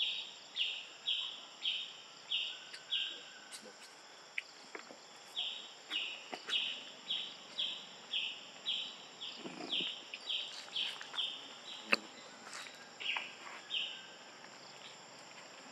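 Forest ambience: a steady high insect drone under a short pulsed call that repeats about twice a second, pausing around four seconds in before resuming. Scattered faint clicks and a soft rustle run through it.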